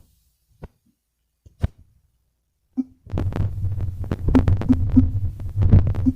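Near silence with a few isolated clicks, then, about three seconds in, a dense low rumbling and thumping with many sharp knocks, like a phone or microphone being handled.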